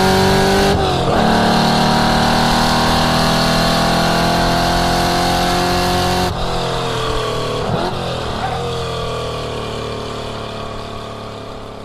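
1967 Ford Mustang's engine under hard acceleration on track, the note rising through the revs with a quick upshift about a second in. About six seconds in the throttle is lifted and the engine note falls, with two brief changes in the note as it slows, and the sound fades away near the end.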